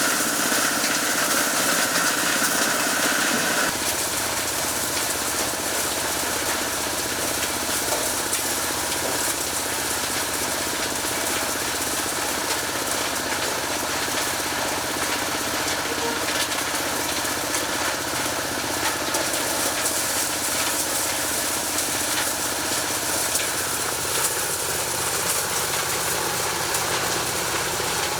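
Engine-driven corn sheller running steadily, with its engine and threshing mechanism making a continuous mechanical noise. The tone changes about four seconds in, then holds steady.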